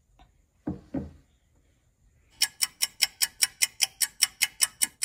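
Rapid, even clicking of glass on the Ramune marble-soda bottle, about five clicks a second, starting about two and a half seconds in. A couple of soft, low sounds come about a second in.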